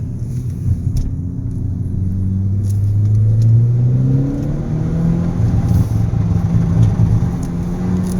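Hyundai Veloster Turbo's 1.6-litre turbocharged four-cylinder engine running while driving, its pitch climbing under acceleration for about four seconds, then holding steady. The owner suspects a misfire.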